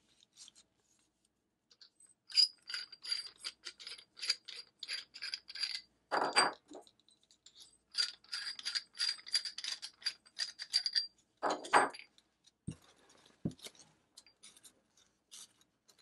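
Metal handle tubes and stored tools of a Zune Lotoo ZS-2 folding camping shovel being handled and fitted together: two runs of rapid scraping clicks with a faint high ring, broken by louder rubs. Then two knocks as tube sections are set down on a desk, and soft rustling of the fabric pouch near the end.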